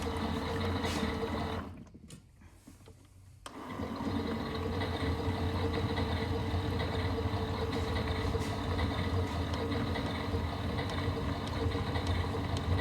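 Miele Novotronic W377 WPS washing machine on its rinse: the drum motor runs with a steady hum, stops for about two seconds near the start, then starts up again as the drum changes direction.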